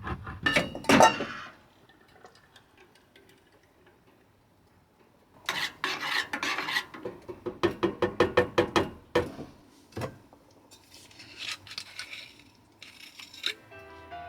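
Cookware and cutlery clattering, then a run of quick, even scraping strokes, about five a second, like a utensil worked against a pot, with a few lighter clinks near the end.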